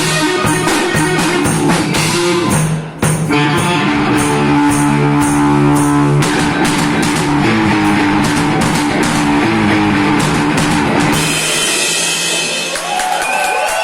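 Rock band playing live on electric guitar and drum kit, with a short break about three seconds in. Near the end the drum beat stops and a sustained ringing carries on.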